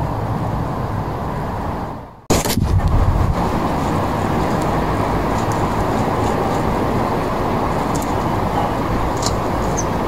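Steady rumble of road traffic that drops out briefly about two seconds in and returns with a sharp click, then runs on with a few faint ticks near the end.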